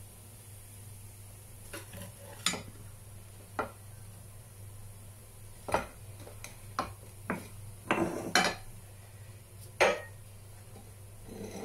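A spatula knocking, scraping and clinking against a non-stick frying pan and a ceramic plate as cooked scrambled egg is served out. The knocks come singly and irregularly, with the loudest cluster about eight seconds in and a sharp one near ten seconds, over a steady low hum.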